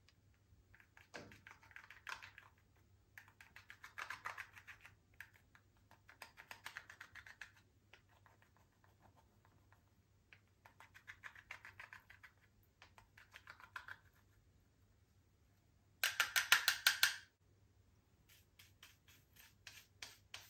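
Slime being worked by hand, making rapid small clicking, crackling pops in bursts of a second or two with short pauses between, and a louder, denser burst about sixteen seconds in.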